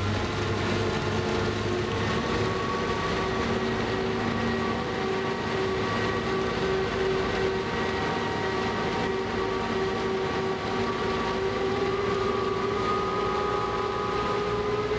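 Passenger boat M/S Söderarm's engines running under way: a steady drone of several tones that drift slowly in pitch and rise a little near the end, over a rushing hiss.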